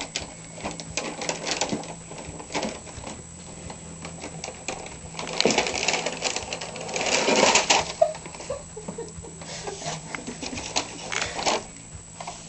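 Crinkling and rustling of a plastic snack bag of Cheez-Its as an animal pokes and tugs at it, a quick run of small crackles that grows louder in the middle.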